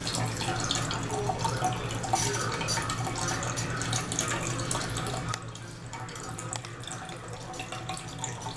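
Water running steadily from a faucet, with irregular splashes as a Bengal cat plays in the stream. The flow eases a little about five seconds in.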